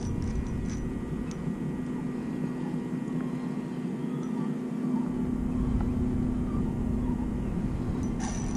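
Steady low drone of a distant engine, with wind rumbling on the microphone that drops away for a few seconds in the middle.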